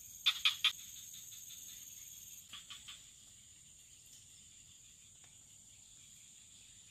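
Steady high-pitched drone of insects such as crickets or cicadas, its highest tone dropping out about two and a half seconds in. Short chirps come in quick runs of three, near the start and again about two and a half seconds in.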